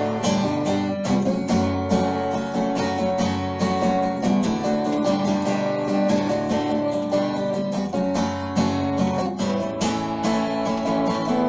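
Acoustic guitar strummed in a steady rhythm, chords ringing with no singing over them.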